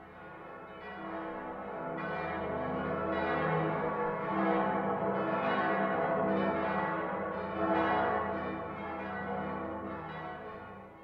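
Church bells of the Frankfurt city peal (Großes Stadtgeläut), several bells swinging and ringing together in overlapping strokes. They fade in over the first couple of seconds and fade out near the end.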